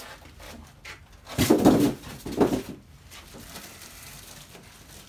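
Foam packing block and plastic bag rubbing and creaking as a griddle is handled out of its packaging, loudest twice, about one and a half and two and a half seconds in.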